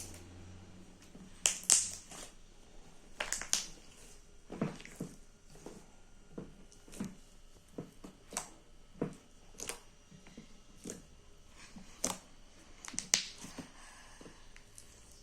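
Slime worked in the hands, giving a series of sharp wet clicks and pops, roughly one or two a second at an irregular pace.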